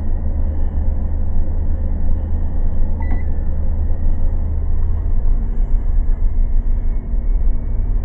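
Van engine idling with a steady low rumble, and a single short beep from the digital microwave's keypad about three seconds in as it is set to run; a faint steady hum comes in about two seconds later as the microwave starts drawing power through the inverter.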